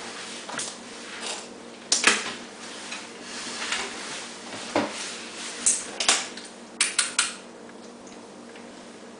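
Small hand tools, a plastic snap-off utility knife and a pencil, being set down on a foam board and picked up: a series of sharp clicks and knocks. The loudest is a pair about two seconds in, then single ones, then a quick run of three clicks a little past the middle.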